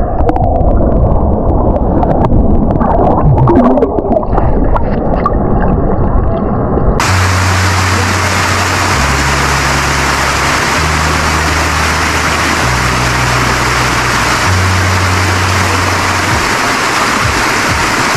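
Underwater sound in a rocky mountain stream: muffled gurgling and churning with scattered sharp clicks. About seven seconds in it cuts abruptly to the steady rush of the stream and a small cascade heard above water. Under the rush is a low bass line that steps to a new note every couple of seconds.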